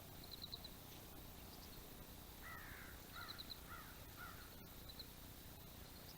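Faint bird calls over quiet outdoor ambience. There is a run of four calls about two and a half seconds in, and brief high twittering trills near the start and again about three seconds in. A single faint click comes near the end.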